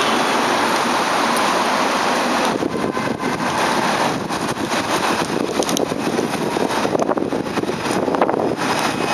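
Alstom Citadis tram approaching a stop on wet rails, heard under a steady noisy wash of wet-street noise and wind on the microphone.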